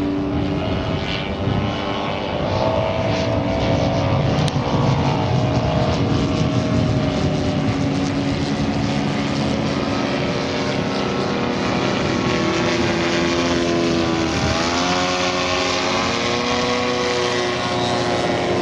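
Propeller-driven radio-controlled model aeroplane engine droning in flight, more than one engine note at once. The pitch drops sharply about 14 seconds in and then climbs again as it flies past or changes throttle.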